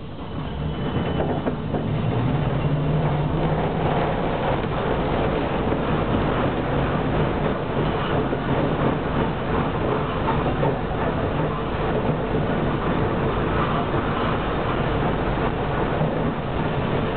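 A city tram running along its street track, heard from inside the car at the rear: a steady rumble of wheels on rails. It builds up over the first couple of seconds as the tram gets under way, with a low motor hum in the first few seconds.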